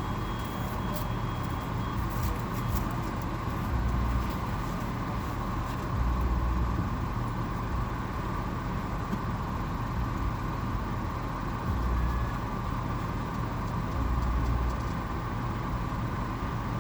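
Car idling, heard from inside the cabin: a steady hum with a low rumble that swells every few seconds.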